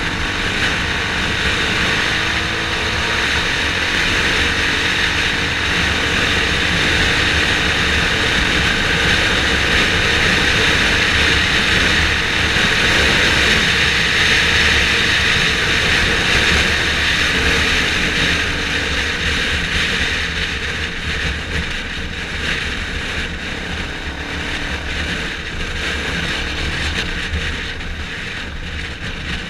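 Motorcycle ride in traffic heard from a helmet-mounted camera: a steady rush of wind and road noise over the engine's low drone. The rush grows louder toward the middle as speed builds and eases off near the end.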